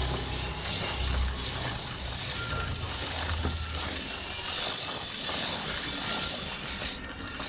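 Brush scrubbing a cleaner-soaked motorcycle chain as the rear wheel is spun by hand, with the chain clicking and rattling over the sprocket. The scrubbing stops shortly before the end.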